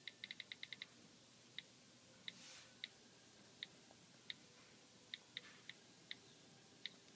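iPhone on-screen keyboard key clicks as a password is typed: a quick run of about seven clicks in the first second, then single clicks roughly every half second.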